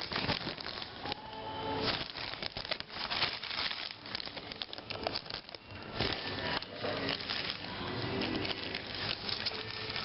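Irregular rustling and crackling handling noise, like plastic packaging or the recording device being handled.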